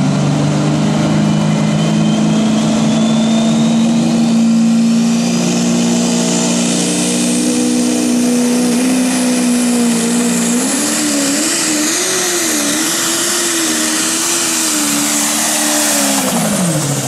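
Massey Ferguson pro stock pulling tractor's turbocharged diesel engine at full power, hauling a weight-transfer sled, with a high whine rising over the first few seconds. The engine holds a steady pitch, then wavers up and down for the last several seconds as it works against the growing load, and drops away sharply near the end.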